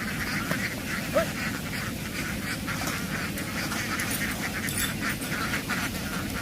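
A large flock of ducks quacking together, a dense, continuous chorus of overlapping calls.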